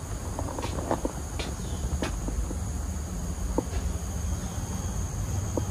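Steady high-pitched drone of insects from the surrounding vegetation, with scattered footsteps and light clicks, irregular and clustered in the first two seconds and again near the end.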